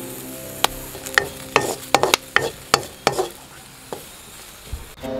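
A wooden spatula stirring and scraping chillies that are dry-roasting in a wok: a quick run of sharp scrapes and clicks starts about half a second in and eases off after about three seconds.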